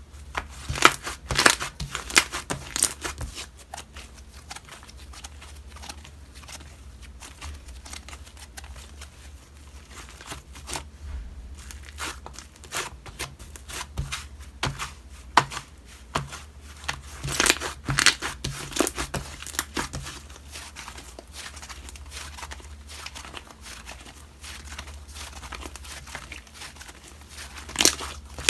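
Slime being squeezed, poked and stretched by hand, giving irregular clicks, pops and crinkly crackles, with denser flurries about a second in, in the middle and near the end.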